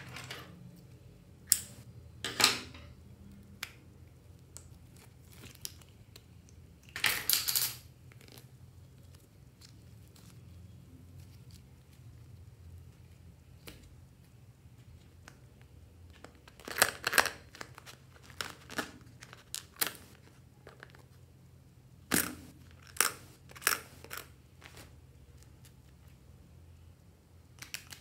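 Slime and small plastic toys being handled by hand: scattered short sticky crackles and clicks, with a longer crackle about seven seconds in and a run of them in the second half, over a faint steady hum.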